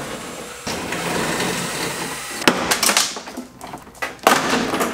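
BMW E36 door panel cracking apart as it is pulled off the door: crackling and rustling, then several sharp snaps, the loudest near the end. The old, brittle panel is breaking rather than coming off cleanly.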